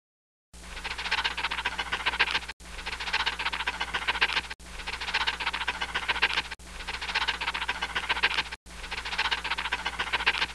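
Marker pen drawing with a fast scratching sound, starting about half a second in. It comes in repeated stretches of about two seconds, each broken off by a brief gap, as in a looped drawing sound effect.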